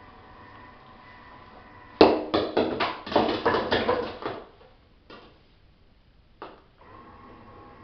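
Bowling ball striking the pins of a homemade mini nine-pin bowling alley about two seconds in, the pins clattering and knocking into each other for about two seconds. Two single knocks follow later.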